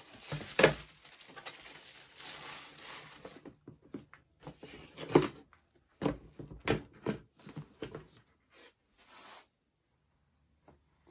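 Tissue paper rustling and crinkling as sneakers are handled in and out of a cardboard shoebox, with two sharp knocks of the shoes against the box, about half a second and five seconds in, then a run of lighter knocks and handling sounds that die away to faint rustles.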